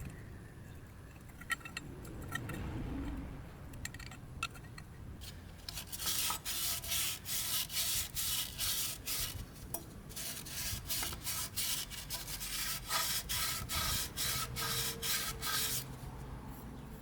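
Quick back-and-forth rubbing strokes on a hard surface, about six a second, in two runs with a short pause between them.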